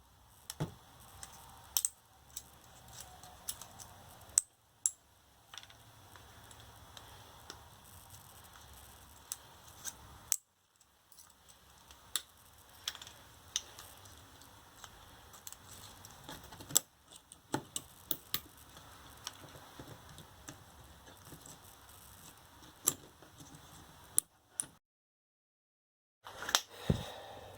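Scattered small clicks and snaps of hand work taking apart an electric scooter's lithium-ion battery pack into its 18650 cells, over a faint steady background. The sound cuts off abruptly a few times, once for about two seconds near the end.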